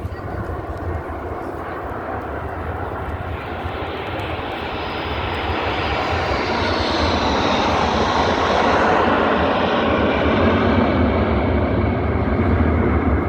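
Jet aircraft flying past at an air show, its roar building to its loudest in the second half, with a high whine that falls in pitch as it goes by.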